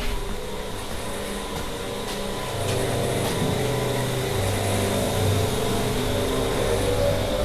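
Steady mechanical hum of milking-shed machinery running, growing louder about two and a half seconds in.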